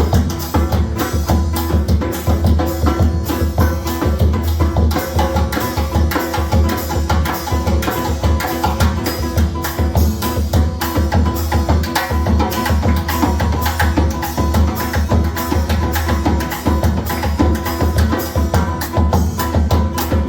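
Samba played live by a small band: busy hand percussion in a fast, even rhythm over guitar and a steady low bass line.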